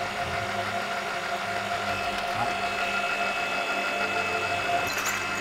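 Drilling machine spindle running as a twist drill cuts dry into a metal block with no cutting oil, a steady mechanical hum with a few held tones.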